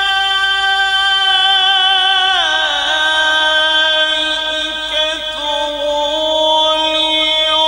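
A male qari's voice in melodic Quran recitation (tilawat), holding one long vowel on a steady pitch. About two and a half seconds in it glides down and carries on as a lower held note with small ornamental wavers.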